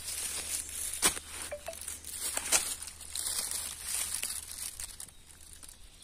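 Footsteps crunching through dry fallen leaves and twigs: an irregular crackling with a few sharper snaps, quieter near the end.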